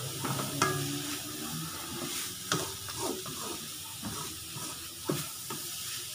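Wooden spatula stirring a grated-coconut and leaf mixture frying in a nonstick wok, over a steady sizzle, with a few sharper scrapes and knocks of the spatula against the pan.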